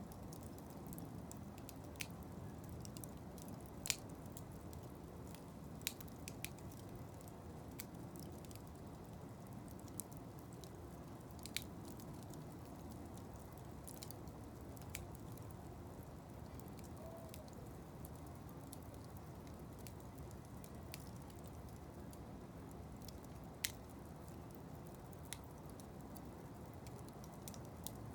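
Wood fire of burning blocks crackling, with a steady low rushing of the flames and sharp, irregular pops every second or few.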